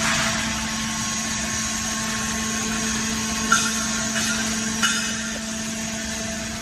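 Scrap metal push-out baler running with a steady hum, with two short sharp knocks, one about three and a half seconds in and one near five seconds.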